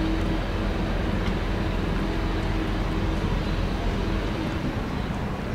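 Jet airliner engines running, most likely the Boeing 737-300's CFM56 turbofans: a steady rushing noise with a low hum that fades out about three and a half seconds in.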